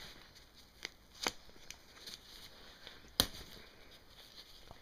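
A few sharp clicks and taps from handling the Baby Jogger City Select stroller seat and its fabric cover. The loudest click comes about three seconds in.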